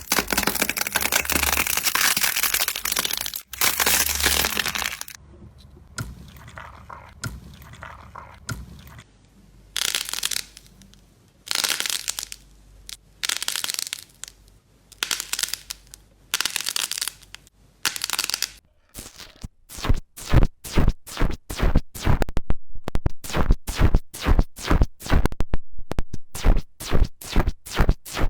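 Slime being pressed and squeezed close to the microphone, making crackling, crunching noises: a dense run of crackles at first, then separate presses about once a second, and in the last third a quick series of short crackles, two or three a second.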